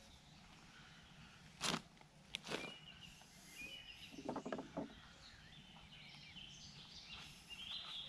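Birds chirping in the background, with two loud sharp rustling handling noises about two seconds in and a quick run of soft knocks and rattles around four and a half seconds from hands working in a bucket of bait.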